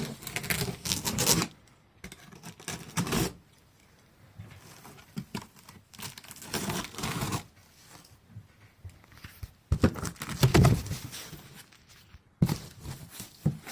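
Tape being ripped off a cardboard shipping box and the box being handled, in several separate bursts of tearing and scraping with pauses between them.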